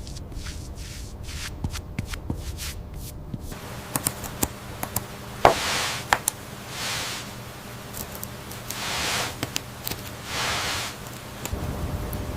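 Hand craft work on a miniature diorama: a run of small clicks and ticks, then a few soft swishing strokes about half a second long, like rubbing or brushing, with sharp taps between them.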